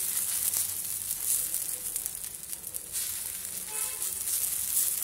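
Pearl millet adai batter sizzling on a hot iron dosa tawa as a steel ladle spreads it thin: a steady, hissing sizzle.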